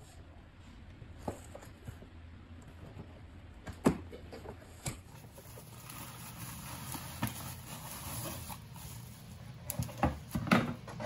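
Cardboard delivery box being opened and handled on a stone counter: a few sharp knocks of the box against the counter, then rustling of plastic bubble wrap as the wrapped item is pulled out, with a run of quick clatters near the end.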